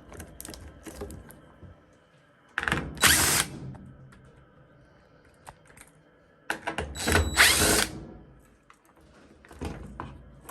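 Power drill/driver running in two short bursts about four seconds apart, backing out the two screws that hold a washer's water inlet valve, with light clicks of handling between them.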